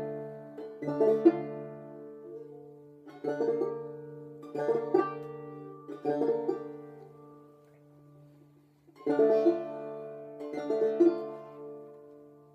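Persian tar played solo with a plectrum: short phrases of struck notes, each left to ring and fade, over low strings that keep sounding. The playing thins out and nearly stops a little past halfway, then starts up again with a new phrase.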